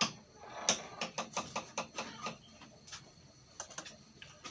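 Irregular small clicks and light knocks of kitchen utensils and containers being handled, busiest in the first two seconds and sparser after, as the boiled herbal brew is made ready for straining.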